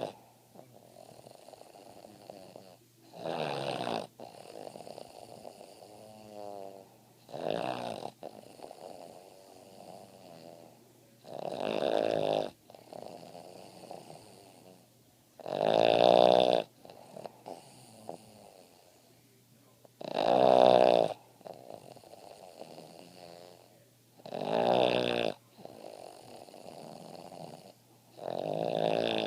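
Boston Terrier snoring in its sleep: a loud snore about every four seconds, with softer rattling breaths between.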